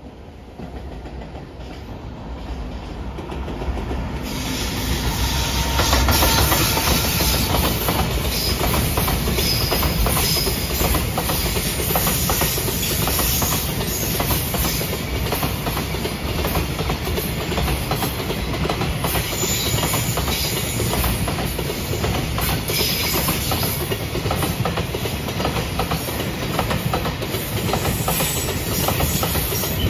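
JR Freight container train running past close by: the sound builds over the first few seconds as it arrives, then a steady rumble of container flatcars rolling by with their wheels clicking rhythmically over the rail joints.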